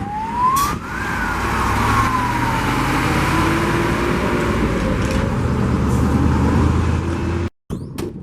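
Quiet siren of a KamAZ 53228 fire engine giving one slow wail: a rise over about a second, then a long falling glide over several seconds. The truck's engine and road noise are louder than the siren.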